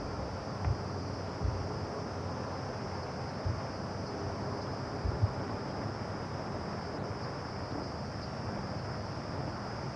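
Outdoor background noise: a steady hiss with a constant high-pitched drone, and a few soft low thumps in the first half, like wind or handling bumps on the microphone.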